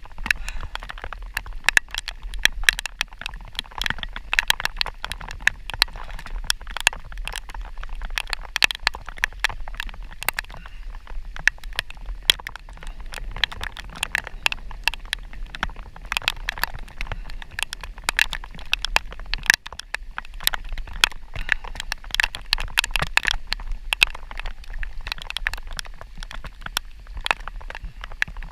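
Raindrops pattering close to the microphone: a dense, irregular stream of sharp taps over a steady low rumble.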